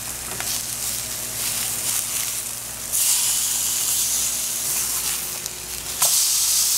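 Seasoned fish fillets sizzling in a hot nonstick frying pan over medium-high heat, with a slotted spatula scraping as the fillets are flipped. The sizzle jumps louder about three seconds in and again about six seconds in, as fillets are turned over onto the pan.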